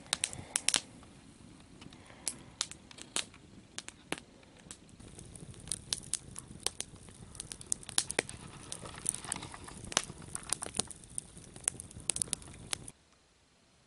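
Wood campfire crackling, with frequent irregular sharp pops over a low steady rush of the flames; it stops abruptly near the end.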